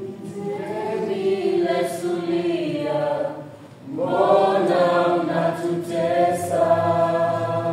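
Voices singing together unaccompanied in long, held phrases. There is a short break about three and a half seconds in before the singing resumes.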